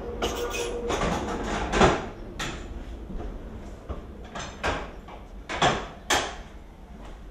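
Mechanical lever frame in an early-1900s signal box being worked: a series of sharp clunks and clacks as the levers and their catches are moved, the loudest about two seconds in. A steady tone from the standing train stops about a second in.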